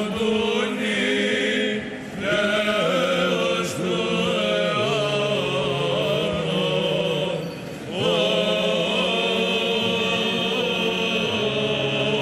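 Male chanters singing Byzantine chant in Greek, a melody over a low held drone note. The singing breaks briefly twice, about two and eight seconds in, between phrases.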